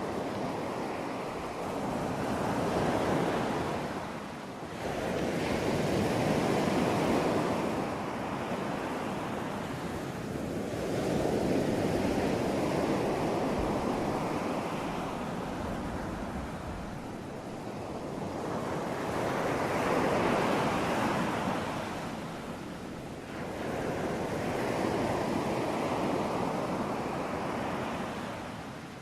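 Ocean surf: waves rushing in a continuous wash of noise that swells and ebbs irregularly, about five surges a few seconds apart.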